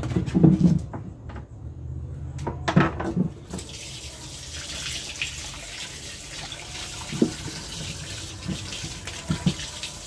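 Water running from a tap into a sink while peeled cassava pieces are rinsed under it by hand; the steady splashing sets in about three and a half seconds in. A few short knocks of handling sound through it.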